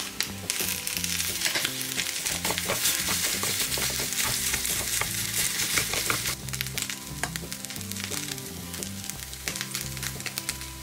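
Fried rice sizzling in a miniature stainless steel pan on a tiny stove as shrimp are added and stirred with chopsticks, with small clicks of the chopsticks on the pan. The sizzle is loudest for the first six seconds or so, then eases. Soft background music with low notes runs underneath.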